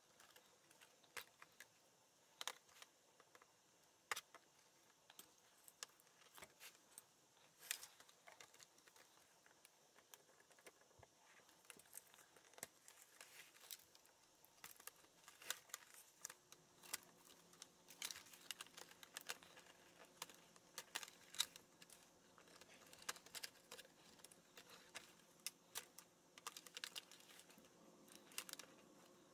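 Faint, irregular small clicks and taps of plastic as a laptop's keyboard deck is pried up with a plastic pry tool and its ribbon-cable connectors are handled.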